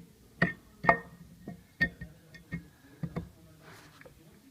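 Metal parts and tools clinking and knocking against each other during hands-on reassembly work, about seven sharp clicks spread unevenly, several with a short metallic ring.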